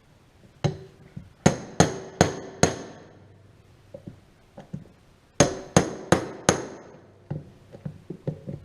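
Metal tapping: two sets of four quick, sharp strikes with a ringing tone, about two and a half a second, with a few quieter knocks in between.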